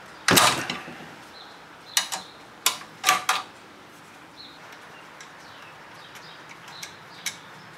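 Hand tools and small metal parts clicking and knocking against the welder's metal chassis as a 13 mm nut is taken off the rectifier's bolt. One louder knock comes just after the start, then a few sharp clicks two to three and a half seconds in, and faint ticks after.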